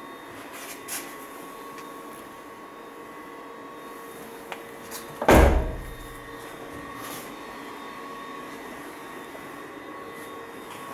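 A car door on a 1980 BMW 316 swung shut with one solid thump about five seconds in, a small click just before it, over a steady faint hum.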